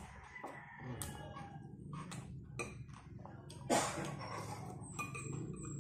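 Close-up eating sounds: wet mouth clicks, smacks and chewing as a man eats fish with a spoon and fork, with a louder slurping burst near the middle as the spoon goes into his mouth. A low steady hum runs underneath.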